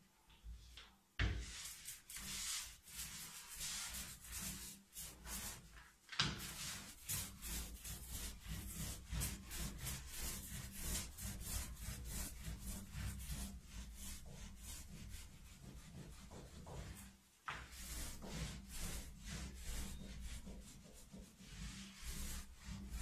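Brush scrubbing the wet surface of a gum oil print on paper in quick, rapid back-and-forth strokes, working off the excess oil paint of the first layer. The scrubbing starts about a second in and pauses briefly twice.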